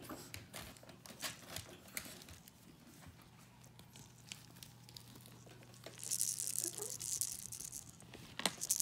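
Crinkly dog toys being handled and shaken on a wooden floor: scattered small clicks and taps at first, then a louder burst of crinkling about six seconds in.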